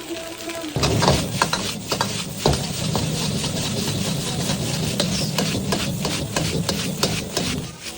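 Fried rice being stir-fried in a wok: a spatula scraping and tapping the pan amid sizzling, over a steady low rumble that comes in about a second in.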